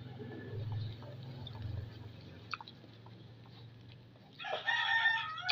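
A rooster crows once near the end, one long call with several stacked pitches, over a low steady hum.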